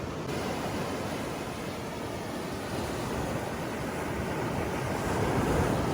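Steady wash of ocean waves and wind, with no distinct events.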